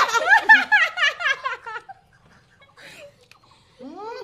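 A woman laughing hard: a quick run of high 'ha' syllables that dies away after about two seconds, followed by a quieter stretch with a short rising vocal sound near the end.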